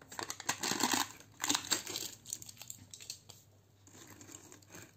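Thin plastic seal being peeled and crinkled off the mouth of a clear plastic snack jar, in two loud crinkling bursts in the first two seconds, followed by lighter rustling and small clicks as the crisp snacks inside are handled.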